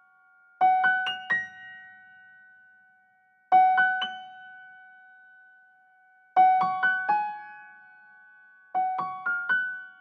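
Background music: a piano-like keyboard playing short phrases of three or four quick notes, each phrase left to ring and fade, about every three seconds.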